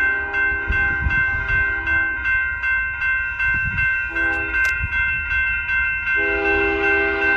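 BNSF freight locomotive's multi-chime air horn sounding at a grade crossing. A long blast ends about two seconds in, a short blast follows at about four seconds, and another long blast starts about six seconds in: the closing part of the standard crossing signal. Behind it, the crossing's warning bell dings steadily, about two to three times a second.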